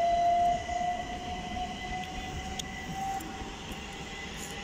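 Southern Class 377 Electrostar electric multiple unit accelerating away, its traction motors giving a steady whine that slowly rises in pitch over a low running rumble. Loudest at the start, then fading a little as it pulls away.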